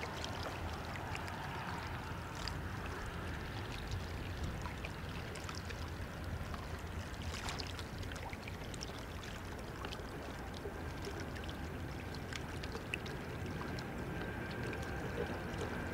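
Steady rushing and lapping of the Rhine's water at the bank. A faint, steady high whine joins about two-thirds of the way through.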